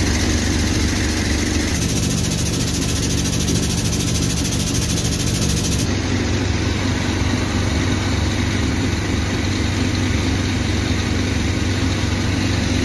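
An engine running steadily at idle, a constant low hum whose tone shifts slightly about two seconds in and again around six seconds in.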